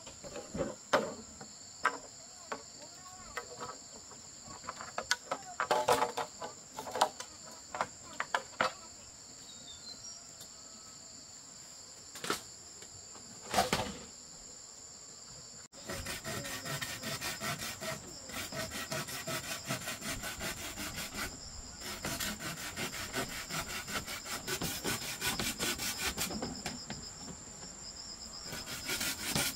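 Insects keep up a steady high buzzing throughout, over scattered knocks and scrapes of hand work on wood. About halfway in this changes to a dense, rapid run of rasping strokes, like sawing or scraping.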